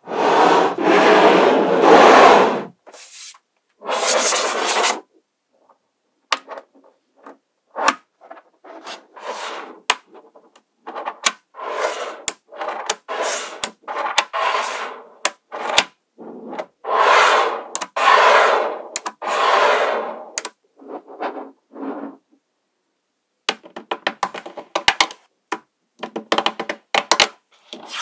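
Small magnetic balls rattling and scraping against each other as they are handled, in bursts a second or two long, with sharp single clicks as balls snap together in between.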